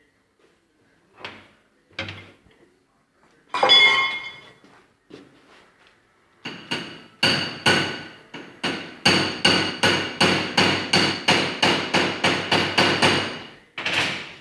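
Hammer striking metal parts, each blow ringing: a few separate blows, then a steady run of about three blows a second, with a last blow near the end.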